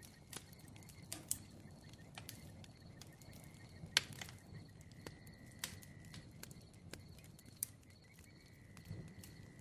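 Bonfire crackling: irregular sharp pops and snaps over a low steady rumble of the flames, with the loudest pop about four seconds in.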